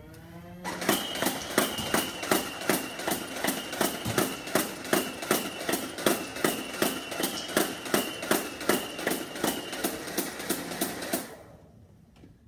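Nerf Mega Mastodon motorized blaster firing fully automatic. A steady motor whine starts under a second in, then rapid shots come at about three a second for some ten seconds and stop suddenly near the end.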